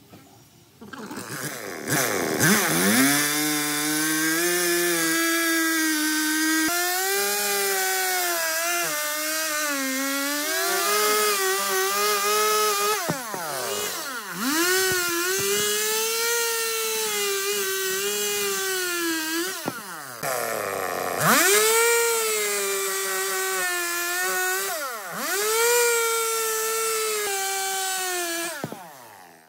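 Two-stroke chainsaw cutting through the branches of a tree trunk. Its pitch wavers up and down as the chain bites into the wood. The throttle is let off and opened again about three times, and the saw stops right at the end.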